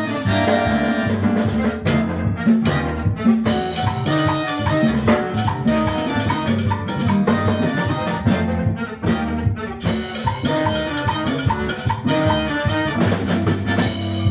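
Live band playing: a brass section carrying melody lines over a drum kit and hand percussion, with a steady dance beat.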